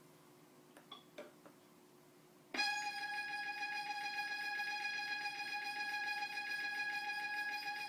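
A KORG tinyPIANO digital toy piano sounding one held note with a fast pulsing tremolo, starting suddenly about two and a half seconds in and sustaining, in imitation of a Seoul subway effect sound. A few faint clicks of keys come before it.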